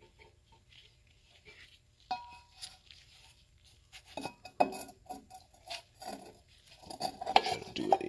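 Sheet-metal air-cleaner cover and filter of a small engine being handled and fitted by hand: scattered metallic clinks, knocks and rubbing, with one ringing clink about two seconds in and the loudest knocks near the end.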